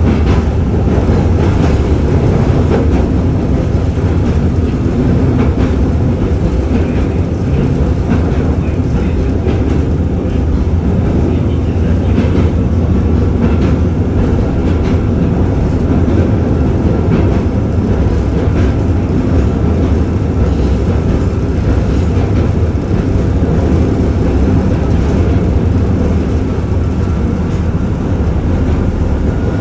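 LM-99AVN tram running along the track at speed, heard from inside the passenger saloon: a steady low rumble of the wheels on the rails and the running gear.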